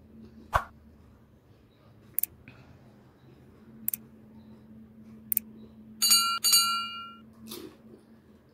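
A sharp crack about half a second in as a crisp puri shell is broken, then three quick double mouse clicks and two bell chimes about half a second apart, ringing for about a second: the sound effect of a subscribe-button animation. A low steady hum sits underneath.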